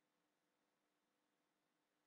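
Near silence: faint steady hiss and hum of the recording with no distinct sound.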